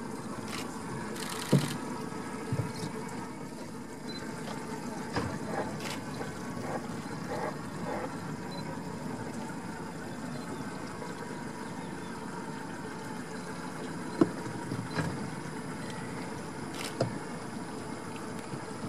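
Steady hum of an idling boat motor with water sounds, broken by a few sharp knocks, the loudest about a second and a half in and again about fourteen seconds in.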